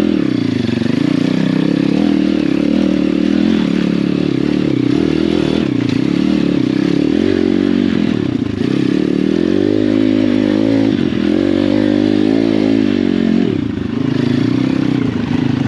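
Apollo RFZ pit bike's swapped-in 150cc single-cylinder four-stroke engine under load on a muddy, rocky trail climb, its pitch repeatedly rising and falling with the throttle. The revs climb higher for a few seconds past the middle, then drop briefly near the end.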